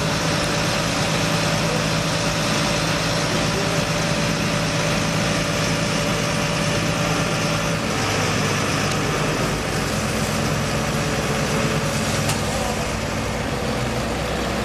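Fire engine running steadily with a continuous hum, its tone shifting slightly about eight seconds in.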